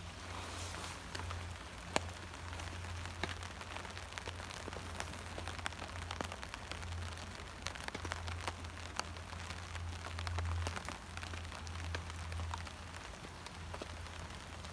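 Steady rain falling, with many separate drops tapping sharply, some of them on a tarp. A low steady rumble runs underneath.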